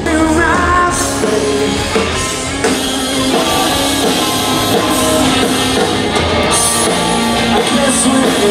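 Rock band playing live with a singer, loud and steady.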